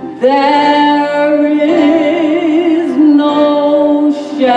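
A woman singing a gospel solo, holding long notes with a wide vibrato, with a short break near the end before the next phrase.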